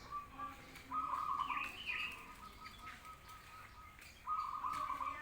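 Zebra dove (perkutut) cooing: rapid trilled phrases of notes, two loud phrases about three seconds apart with a fainter trill between.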